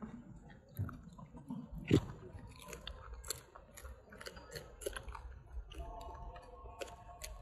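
A baby macaque chewing and biting on a green stem: a string of small, quick clicks and crunches. There is one louder knock about two seconds in.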